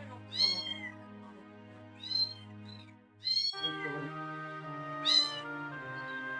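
Month-old kittens meowing: four short, high-pitched mews, each rising then falling in pitch, over soft background music with held notes.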